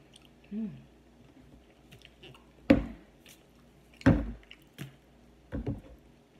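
A person chewing hot food with wet mouth sounds and a short hummed "mm" near the start, then three loud puffs of breath blown out between about 3 and 6 seconds in, from food that is too hot in the mouth.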